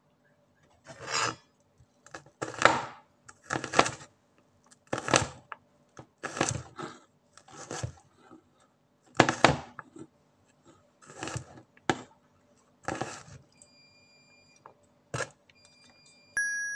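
Chef's knife chopping garlic cloves on a plastic cutting board: about ten separate strokes, roughly one every second and a half.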